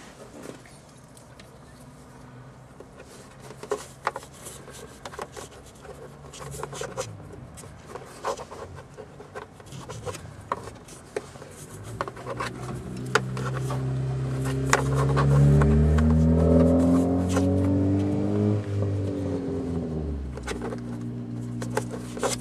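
Small plastic clicks and scrapes as glove box stoppers are worked back into place. About halfway through, a motor vehicle drives past, its engine note rising and getting louder, then dropping in pitch and fading.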